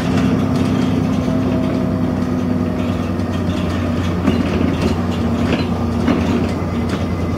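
Inside an ADL Enviro400 double-decker bus: the diesel engine running steadily at low revs, with light rattles and clicks from the bus interior.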